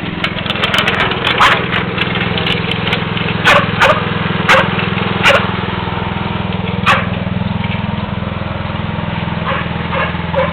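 Riding lawn mower engine running steadily, with a series of short, sharp clicks and cracks over it, most of them in the first half.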